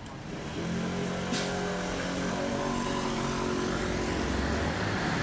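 A motor vehicle drives past on the street, its engine drone rising as it approaches and then holding steady with a deep rumble. A brief sharp click or hiss sounds a little over a second in.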